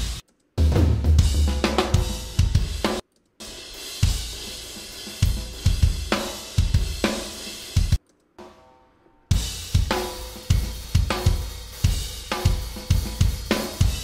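Raw, unmixed multitrack drum recording of a live-tracked metal song played back solo: fast kick drums, snare, cymbals and hi-hat, clear and detailed. The playing stops briefly just after the start and about 3 s in, and drops out for about a second around 8 s.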